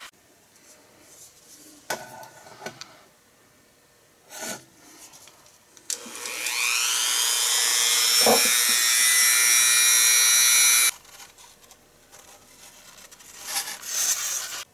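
Dremel 300 rotary tool switched on, its motor whine rising quickly in pitch and then holding a steady high whine for about five seconds before cutting off suddenly. A few light handling clicks come before it, and a brief rubbing noise near the end.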